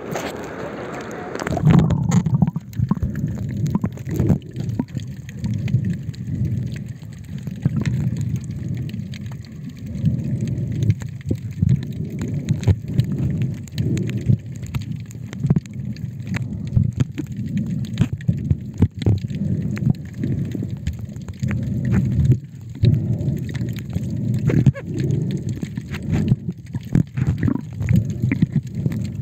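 Muffled underwater rumble and sloshing of water around a submerged camera, with scattered clicks and knocks. The brighter open-air water sound of the first couple of seconds drops away as the camera goes under.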